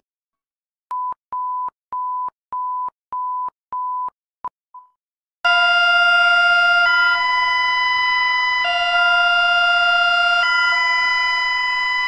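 Emergency alert tones played back. First comes a string of about six short, evenly spaced high beeps, ending in two shorter fading ones. Then, about five and a half seconds in, Bulgaria's phone emergency alert starts: a loud, harsh alarm tone that switches back and forth between two chords every second and a half or so, written as 'GUEEEEAAAA'.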